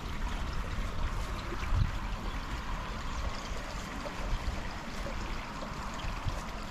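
River water running and trickling steadily, with a low rumble and a brief low thump about two seconds in.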